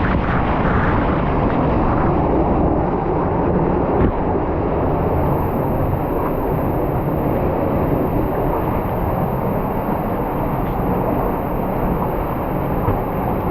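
Waterfall's falling water: a loud, steady rush with no break. There is a small knock about four seconds in.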